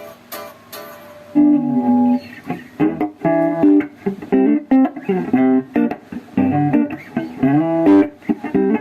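Guitar played: a few clicks, then from about a second and a half in a melodic line of single notes with slides and bends.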